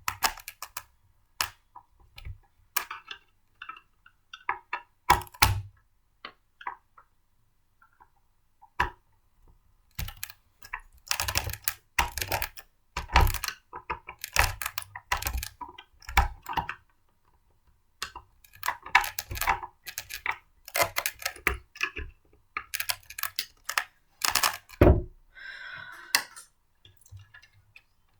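Irregular clicks, taps and knocks of blender parts being handled and fitted together by hand, with a few heavier thuds and a brief scrape near the end.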